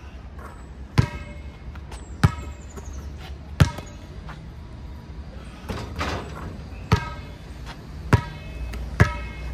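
Basketball bouncing on an outdoor hard court: about seven sharp, ringing bounces spaced a second or so apart, with a denser clatter about six seconds in. A steady low rumble runs underneath.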